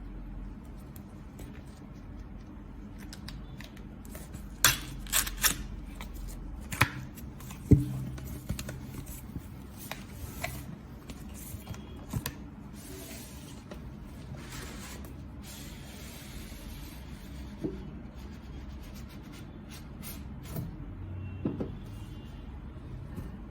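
Packaging being handled during an unboxing: scattered sharp clicks, taps and rustling, with a cluster of loud clicks about five seconds in and a knock near eight seconds.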